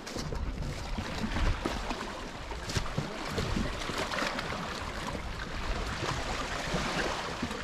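Wind and the sea washing at the shoreline, heard as a steady rushing noise, with a few sharp crackles or knocks.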